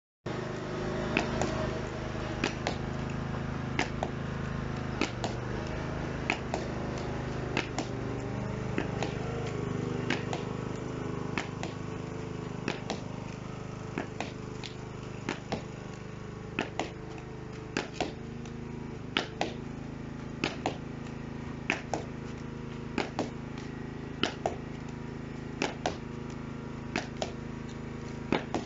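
Hurley striking a ball against a wall over and over, sharp knocks a little over once a second, over a steady low hum.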